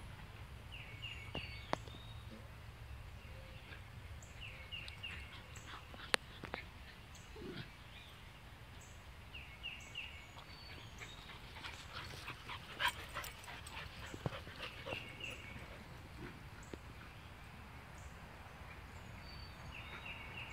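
Puppies playing: scattered short dog sounds and scuffling, busiest around the middle. A short triple chirp repeats every few seconds in the background.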